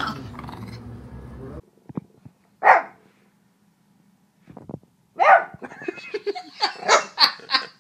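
Small white spitz-type dog barking: one sharp bark, then about two and a half seconds later a quick run of high barks.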